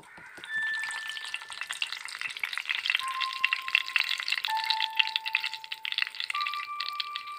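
Tempering seeds frying in hot oil in a non-stick pan, a dense sizzle full of small crackling pops, starting about half a second in, while a wooden spatula stirs them: the tadka (tālimpu) stage.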